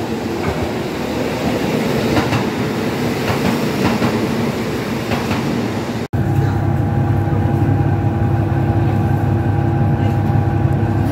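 Ise Railway single-car diesel railcar idling at the platform, its engine heard from outside with a few faint clicks. About six seconds in, the sound cuts to inside the passenger cabin, where the idling engine is a steady low hum.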